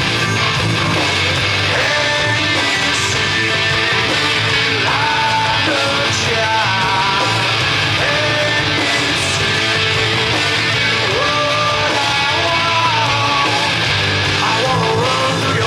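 Loud rock music: distorted electric guitars and a full band under a sung vocal melody.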